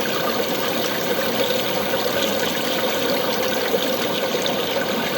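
Heavy rain falling steadily: a dense, even hiss made of many small drops, with no change in strength.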